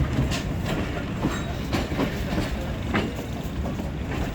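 Express train's coach wheels running over rail joints and pointwork: a steady rumble with sharp, unevenly spaced clacks every half second to a second, typical of the train changing tracks as it leaves a junction.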